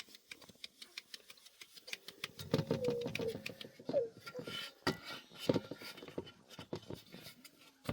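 Rapid, irregular tapping and clicking, with a few short squeaky chirps about three to four seconds in.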